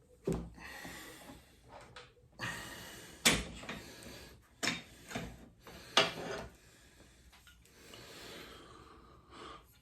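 About four sharp knocks and clatters from motorcycle parts and tools being handled at the steering head, with a person breathing hard and puffing between them.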